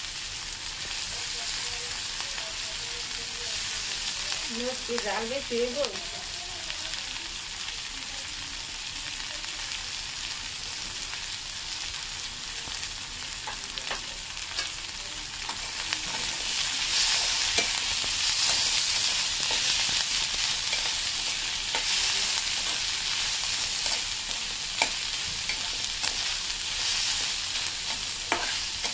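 Onions, garlic and green chillies sizzling in hot oil in a karahi over a gas flame, lightly frying before being mashed into a bhorta. The sizzle grows louder about halfway through, and a spatula stirs and scrapes the pan now and then in the second half.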